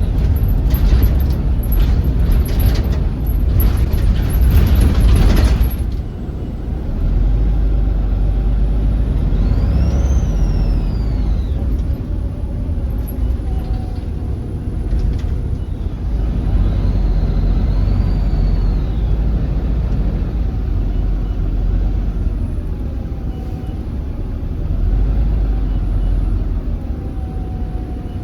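Volvo B7RLE bus diesel running with a whistling turbo: a high whistle rises and falls with the engine several times over a steady low drone. A loud hiss of air runs for the first few seconds.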